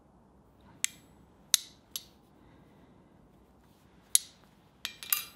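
Six sharp clicks and clacks of hard metal against a steel anvil face, the louder ones leaving a brief high ring; the last two come close together near the end.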